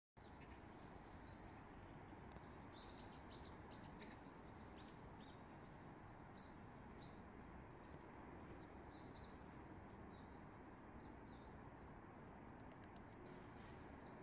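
Faint birds chirping: a quick run of short, high chirps in the first few seconds, then scattered single chirps, over a steady low background hiss.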